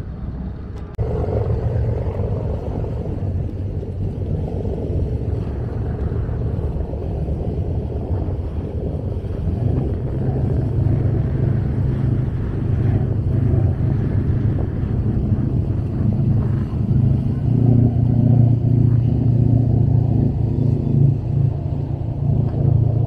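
Engine of an excursion boat motoring past close by, a steady low drone that grows louder over the second half.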